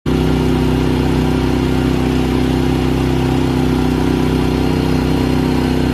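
A boat engine running steadily at an even speed, a constant engine drone with no change in pitch.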